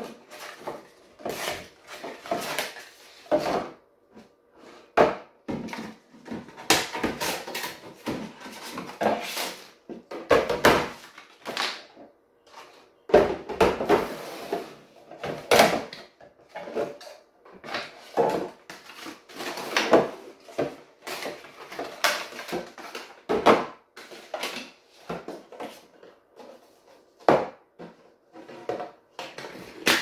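Clear plastic storage bins being handled on a wooden worktop: cardboard labels rustling as they are pulled off, with irregular knocks and clatter as the bins are moved and set down.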